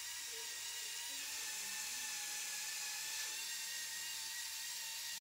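Electric motors and gearing of a Lego Technic remote-controlled car whining steadily as it drives, with slight shifts in pitch.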